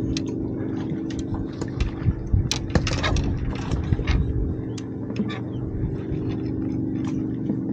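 Scattered clicks, taps and light scrapes of fishing gear being handled on a boat, over a steady low hum.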